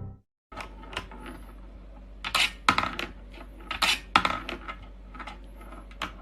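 A run of irregular sharp clinks and knocks of small hard objects, like metal or crockery being knocked about.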